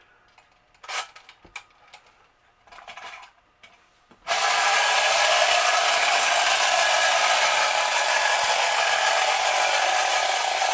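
Clockwork motor of a tin-litho Marx Moon Scout wind-up toy helicopter, freshly wound, running as the toy moves: a steady mechanical whir that starts suddenly about four seconds in, after a few soft handling knocks.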